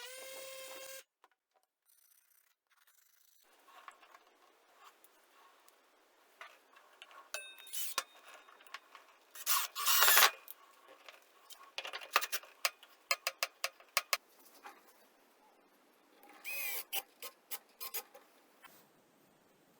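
A steady pitched hum cuts off about a second in. After it come scattered clicks, taps and brief scraping, as tools and material are handled on a workbench; the loudest is a short scrape near the middle.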